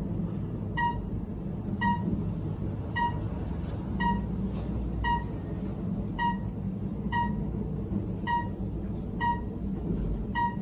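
Elevator car with a short electronic beep repeating steadily about once a second, over the low rumble of the car running.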